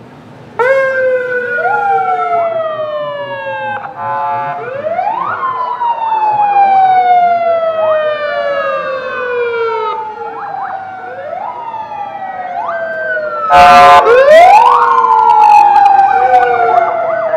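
Several police vehicle sirens switch on together about half a second in and keep going, their wails overlapping, each rising quickly and falling slowly. Short buzzing blasts cut in about four seconds in and again, louder, about fourteen seconds in.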